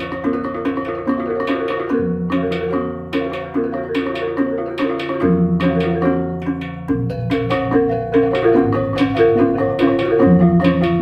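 Balinese baleganjur gamelan playing: reyong gong-chimes ring a fast interlocking melody over sharp strikes of ceng-ceng cymbals and kendang drums. Deep gong strokes start about four times, each left to ring long.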